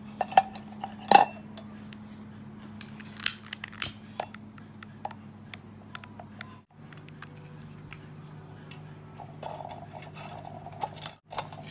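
Small clicks and clinks as a tea light candle in its cup is handled and set into a metal-framed glass lantern, two sharper clinks in the first second and a half and more scattered ones a few seconds in. A low steady hum runs underneath.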